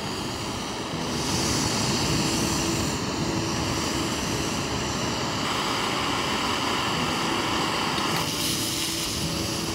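MSR PocketRocket backpacking canister stove burning under a pot of water, a steady hiss of the gas flame. It gets louder about a second in as the flame is turned up, then holds steady.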